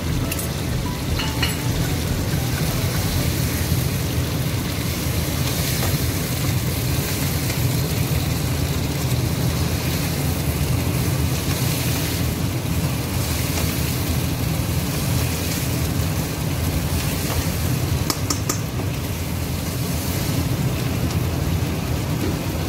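Chicken pieces sizzling as they fry in spiced oil in a non-stick wok, stirred with a slotted spatula that knocks against the pan a few times near the start and again near the end. A steady low hum runs underneath.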